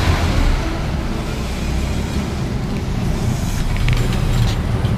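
Steady rumble of road traffic with motor vehicles going by.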